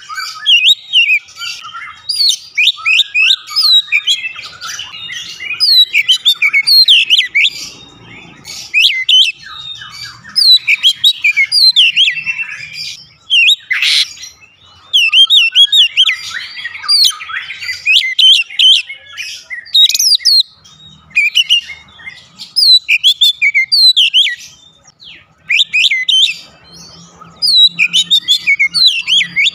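Oriental magpie-robin (kacer) singing a long, varied song of rapid, loud whistled and chattering phrases, broken by a few short pauses.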